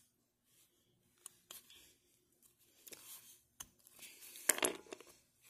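Sharp metal clicks, a few spread out and then a louder cluster of clicking and scraping about four and a half seconds in, as a lug nut is threaded by hand onto a wheel stud of a three-wheeler's steel wheel.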